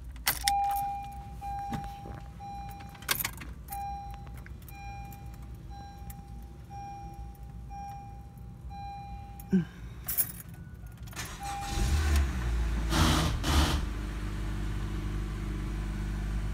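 Keys jangling and a car's warning chime beeping about once a second, then a 2015 Honda Civic's four-cylinder engine cranks and starts about twelve seconds in and settles into a steady idle.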